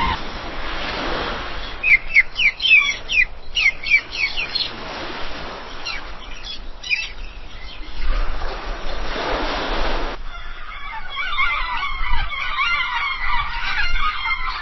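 Seagulls calling over breaking surf: a quick run of sharp, repeated calls about two seconds in and a few more around six seconds, with waves washing in between. About ten seconds in it cuts to a busier flock of gulls calling continuously.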